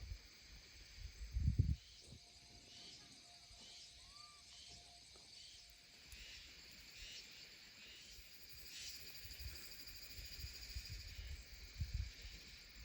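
Faint outdoor ambience of birds and insects calling in repeated high chirps, with brief low rumbles about a second and a half in and again near the end.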